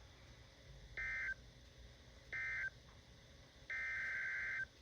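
Emergency Alert System SAME data bursts, a two-tone digital warble: two short bursts about a second apart, then a longer burst near the end. The short bursts are the end-of-message code closing the tornado warning just read, and the longer one starts the header of the next alert.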